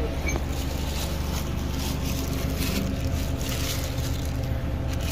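A vehicle engine idling steadily, with a few light rustles of a plastic bag over it.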